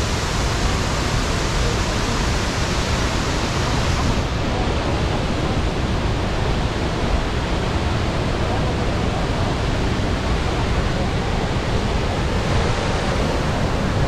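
Iguazu Falls' waterfalls pouring, a steady rush of falling water with no breaks; the sound grows a little duller about four seconds in.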